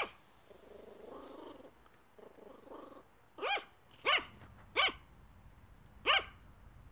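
Yorkshire terrier barking: one bark at the very start, then four sharp, high barks in the second half, spaced half a second to over a second apart.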